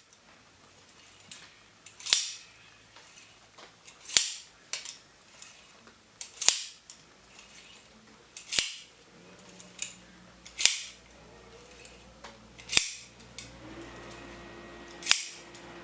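Safety wire pliers being pulled repeatedly to twist a length of MIG wire: a sharp metallic click about every two seconds, seven in all, with small ticks between. The twisting puts tension on the wire to straighten it.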